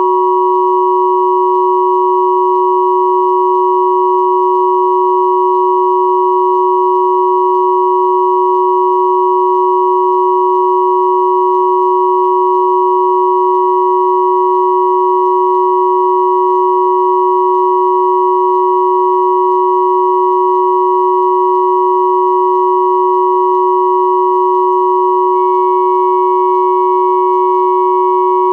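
Steady combined pure sine tones at 369, 963 and 1111 Hz, sounding together as one unchanging hum with a higher two-tone ring, held without a break.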